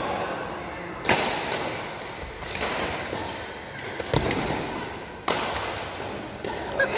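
Badminton rally: a few sharp racket strikes on the shuttlecock about a second apart, with short squeaks of court shoes on the floor.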